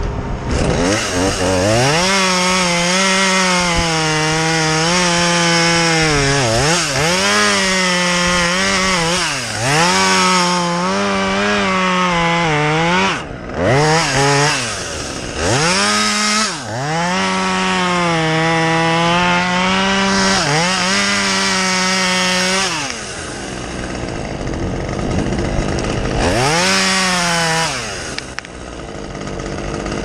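Two-stroke chainsaw revved up and held at full throttle, cutting wood, its pitch dipping briefly several times. It drops back to idle near the end, with one more short rev.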